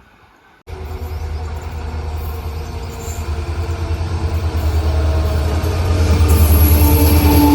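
A train running past at close range: a heavy low rumble that starts abruptly under a second in and grows steadily louder, with faint steady tones over it and a thin high squeal coming in near the end.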